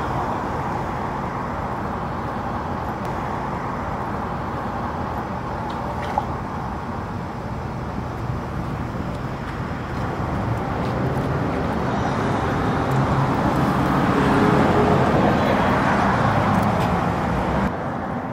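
City street traffic: cars running past in a steady wash of road noise. It swells louder as vehicles pass about two-thirds of the way through, then drops sharply shortly before the end.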